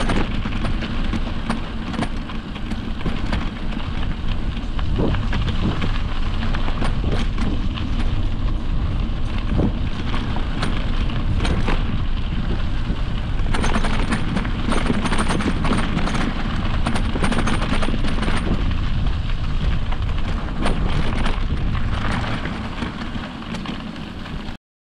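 Ride noise from an e-mountain bike on a dirt trail: wind rumbling on the microphone, with tyres crunching over the ground and frequent knocks and rattles from the bike. The noise stops abruptly near the end.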